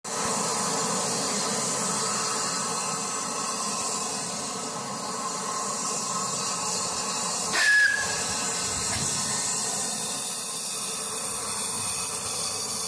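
Steam locomotive hissing steadily as steam escapes around it, with one short, sharp blast of its steam whistle about seven and a half seconds in.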